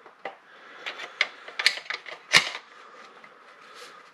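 ATA Etro 20-gauge pump shotgun being reassembled by hand: a series of irregular metal clicks and clacks as the barrel and action parts are worked into the receiver, the loudest a sharp clack about two and a half seconds in.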